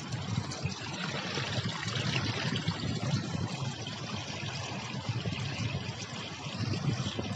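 Water running and trickling over small drops in a stepped stone garden channel, a steady splashing with a low, uneven rumble underneath.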